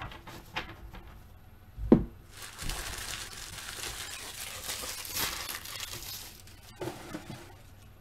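A single thump about two seconds in, then about four seconds of crinkling as a handful of empty foil trading-card pack wrappers is gathered up and crumpled by hand.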